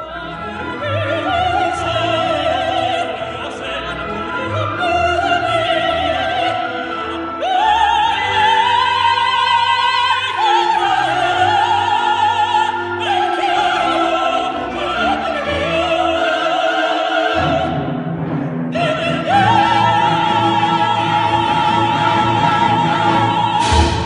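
Soprano and tenor singing an operatic duet with orchestra, the voices soaring with wide vibrato. The last few seconds are a long high note held together, cut off near the end.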